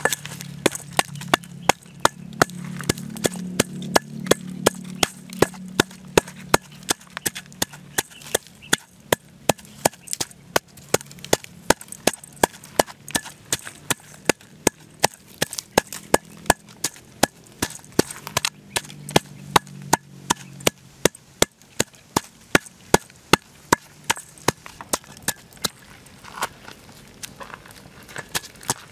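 Wooden pestle pounding dried red chilies and garlic in a stainless steel bowl: sharp, even strokes at about three a second.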